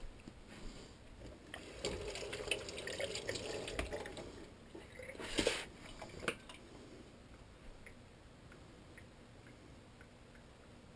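Kitchen tap running for a couple of seconds as an apple is rinsed under it. A loud clatter about five seconds in and a sharper knock a second later follow, then faint small ticks of a paring knife working on the apple.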